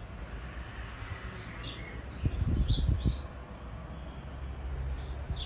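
Birds chirping several times with short high calls, over a low steady rumble, with a few muffled low thumps about two to three seconds in.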